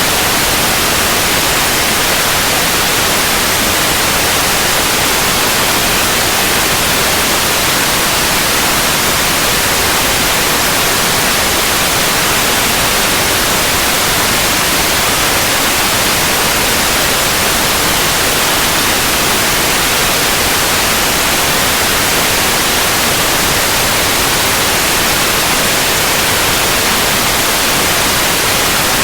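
Steady synthetic white noise, an even hiss spread across the whole range of pitch, unchanging throughout.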